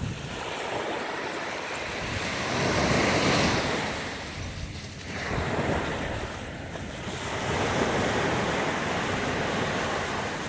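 Ocean surf washing up the shore, swelling and ebbing twice, with wind buffeting the microphone.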